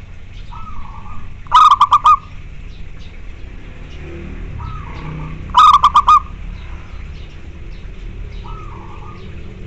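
Zebra dove (perkutut) singing: two loud phrases of about five quick staccato cooing notes, roughly four seconds apart. Between them come three fainter, short curving coos.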